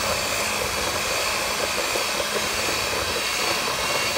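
Electric stand mixer running steadily at speed, a constant motor whine with a hiss, its beater turning through a thick confectioner's-sugar glaze under a clear plastic splash shield.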